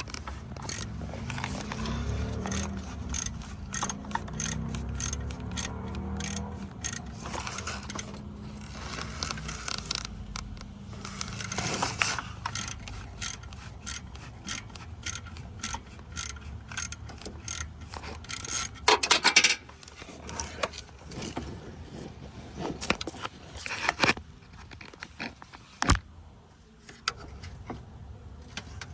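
Small socket ratchet clicking in quick, irregular runs as a bolt is run in by hand, with a few louder metal knocks.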